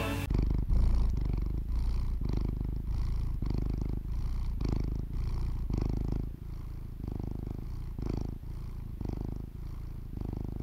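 Domestic cat purring: a low, steady rumble that swells and fades about once a second with its breaths.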